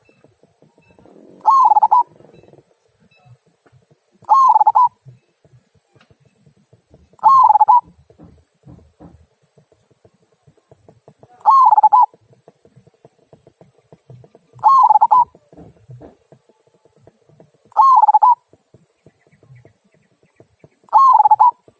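A local zebra dove (perkutut) of the 'kung' voice type cooing: seven short calls about three seconds apart, with faint ticking between them.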